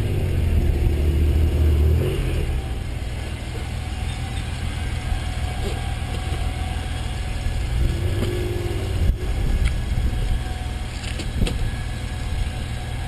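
Honda NSX's V6 engine running at low speed, picked up by a camera mounted on the car's body. It is louder for about the first two seconds, then settles to a steady rumble, with a few sharp clicks in the second half.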